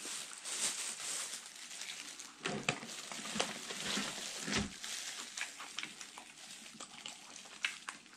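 Eating sounds of battered fried shrimp and squid: crunching, chewing and small mouth clicks at close range.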